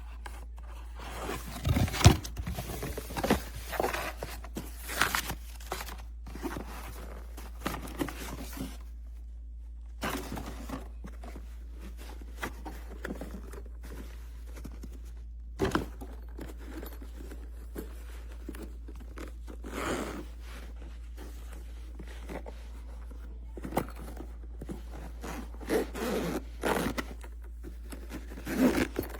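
Irregular handling noises: scrapes, rustles and short knocks, some zipper-like, over a steady low hum.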